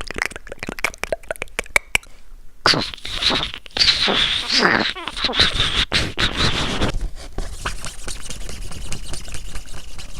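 A foley sound effect being performed: a quick run of clicks, then about four seconds of louder scraping sweeps falling in pitch, then lighter clicking.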